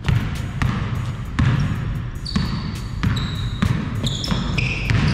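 A basketball being dribbled on a court floor, a hard bounce roughly every two-thirds of a second. From a little after two seconds in, sneaker soles squeak on the floor in short high-pitched chirps at shifting pitches.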